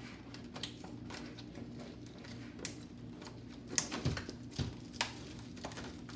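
Cardboard packaging sleeve being worked off a plastic automatic egg turner: irregular rustles and clicks of cardboard, plastic trays and a plastic bag, with a few sharper clicks in the second half, over a steady low hum.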